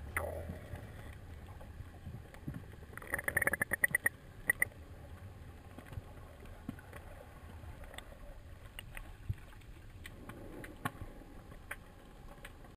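Underwater sound picked up by a camera in a waterproof housing: a steady low wash of moving water with scattered sharp clicks, and a quick run of loud clicks about three to four and a half seconds in.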